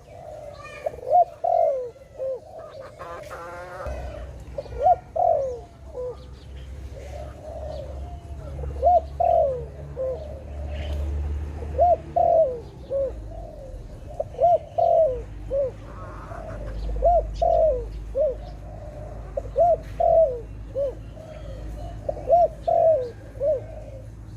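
Zebra dove (Malay dove) cooing: short groups of three or four quick, rolling coos, repeated every few seconds throughout. Faint chirps of other birds sound in the background.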